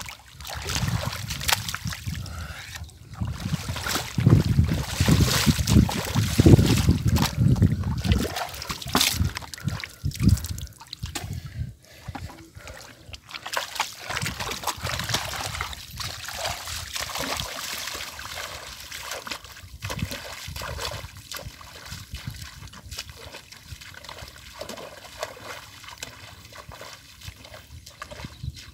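Shallow muddy water splashing and sloshing as hands and feet move through it, loudest and heaviest in the first eight seconds or so, then quieter scattered splashes and trickling.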